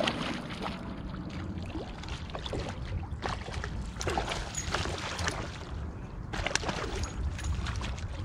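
A hooked bowfin thrashing and splashing at the water's surface beside a kayak: repeated sharp splashes in several flurries, over a steady low rumble.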